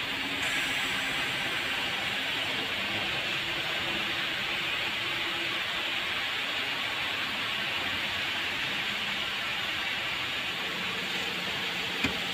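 A steady hiss, with a single sharp click near the end.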